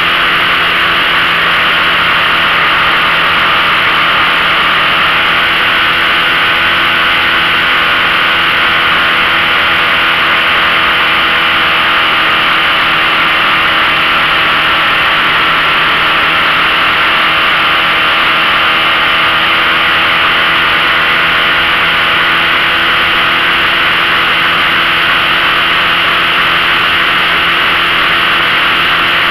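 15 hp outboard motor running steadily under load, pushing a small V-bottom boat that is towing a tub, over a loud, constant hiss. The engine's pitch wavers slightly midway.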